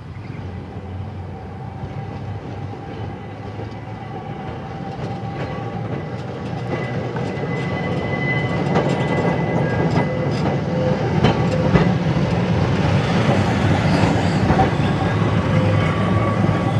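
Adelaide H-class electric tram approaching and passing close, growing steadily louder, with a steady whine and wheels clicking over the rails.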